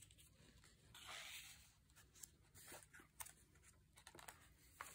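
Near silence with faint rustles and light ticks of paper being handled: a card tag slid in and out of a paper pocket and a journal page touched.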